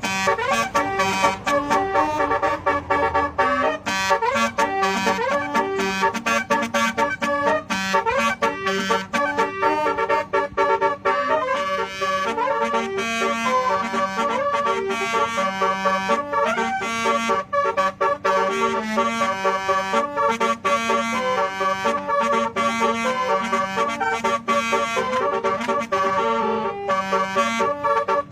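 Basuri telolet musical air horn playing a tune, several horn tones stepping up and down in pitch with short breaks between notes.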